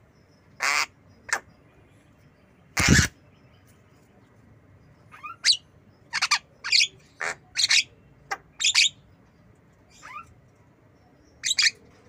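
Javan myna (jalak kebo) calling close up: a string of short, harsh squawks and chirps, about a dozen in all. One loud call comes about three seconds in, and a quick run of calls follows in the middle.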